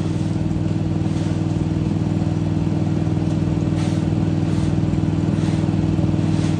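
Truck-mounted leaf vacuum's gas engine running at a steady drone, with faint scrapes of a broom on asphalt now and then.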